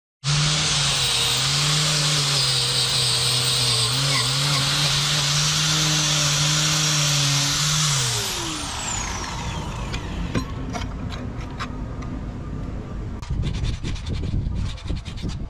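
Angle grinder with a wire brush wheel running on rusty steel, a steady hum under a harsh scouring hiss. About eight seconds in it is switched off and winds down, its pitch falling. After that come small clicks and rubbing from handwork on the part.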